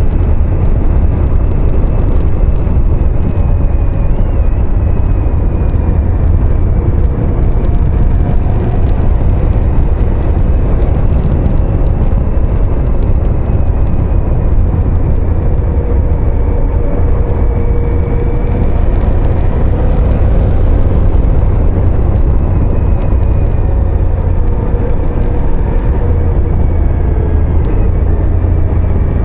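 Motorcycle riding at speed: heavy low wind noise on the microphone, with the engine running underneath, its pitch drifting slowly up and down with the throttle.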